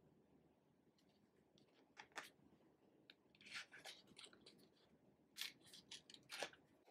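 Pages of a small paper memo pad being handled and turned: faint paper rustles and flicks, a short one about two seconds in, a cluster around three and a half seconds, and two more near the end.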